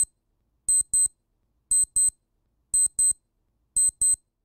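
Deepin 2013 desktop sound theme's 'alarm-clock-elapsed' alert, the sound for a timer or alarm that has run out: very high-pitched electronic double beeps, like a digital alarm clock going off, repeating about once a second.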